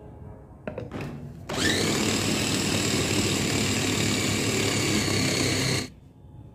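Electric mini food chopper, a glass bowl with a motor head on top, grinding a raw chicken thigh mixture into paste. A few knocks come as the motor head is seated, then the motor whirs up to speed and runs steadily for about four seconds before cutting off.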